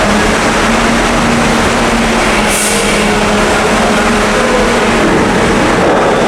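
Loud, steady engine drone filling a ferry's enclosed vehicle hold, with a steady hum and a short hiss about two and a half seconds in.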